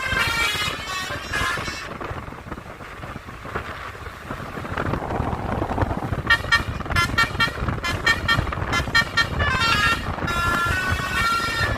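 A bus's Basuri telolet horn, a multi-tone musical horn, playing tunes in short, quick notes. One phrase sounds in the first two seconds; engine and road noise follows, and about six seconds in a longer run of rapid notes begins.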